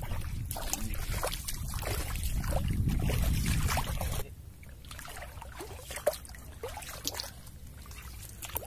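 Shallow seawater splashing and trickling as a person wades and dips a hand into it, with scattered small clicks and knocks. A low rumble runs under the first four seconds and stops abruptly.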